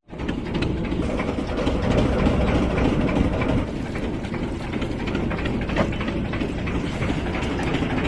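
Boat engine running steadily as a low, even rumble, after a momentary cut to silence right at the start.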